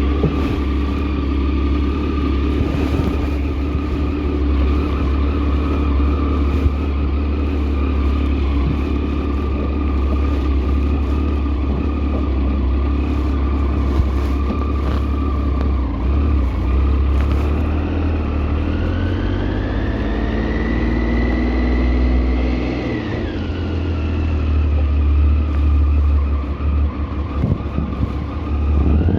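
A motor vehicle running with a loud, steady low rumble and a continuous high whine. About two-thirds of the way through, the whine rises in pitch, then drops suddenly.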